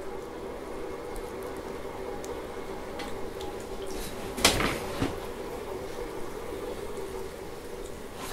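Wet clay being thrown on a spinning potter's wheel: slip-covered hands sliding and squelching over the turning clay, over a steady hum from the wheel. A sharp knock comes about four and a half seconds in, and a softer one half a second later.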